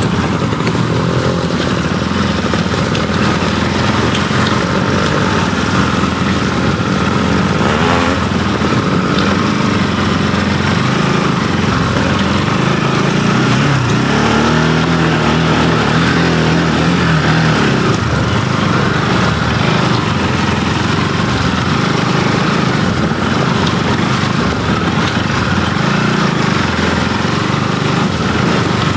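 Motorcycle engine running steadily as the bike is ridden slowly along a muddy dirt trail, with a brief held rise in engine pitch partway through.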